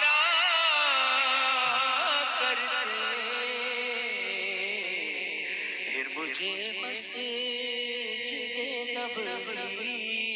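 A man reciting an Urdu naat through a microphone, singing long, ornamented held notes with vibrato after a rising glide at the start.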